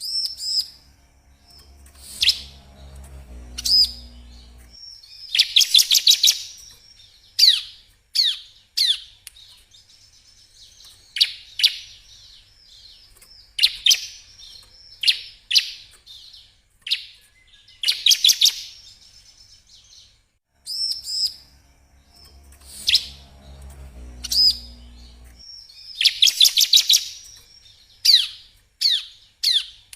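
Bar-winged prinia (ciblek) song: bursts of rapid, high trills and sharp down-slurred chirps separated by short pauses. It is a looped tutoring recording, so the same phrase sequence comes round again about every 20 seconds.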